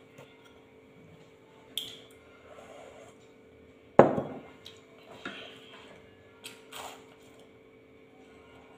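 Tableware handled at a meal table: one sharp clink of a glass bowl about four seconds in, with a few lighter clinks and knocks of dishes before and after it.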